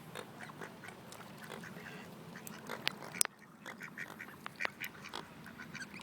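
Ducks quacking repeatedly in short calls, with two sharp clicks a little under three seconds in.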